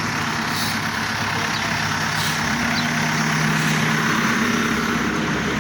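Heavy vehicle or machine engine running steadily with a continuous low hum, getting slightly louder after the middle.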